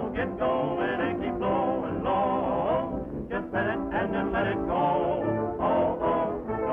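Lively brass-band music from an early 1930s sound cartoon, with horns playing a bouncy tune. It has the thin, dull sound of an old film soundtrack.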